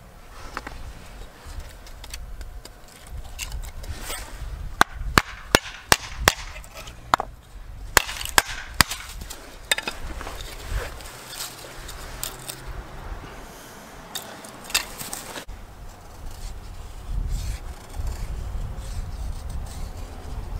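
Split wooden kindling and a large fixed-blade knife being handled on a wooden stump: a run of about nine sharp wooden knocks in the middle, with quieter scraping and rubbing around them.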